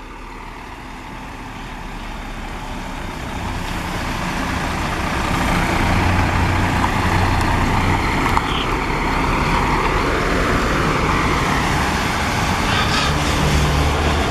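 Intercity coach engine running close by, growing louder over the first six seconds as the bus draws near and then staying loud as it pulls past. One short click about eight seconds in.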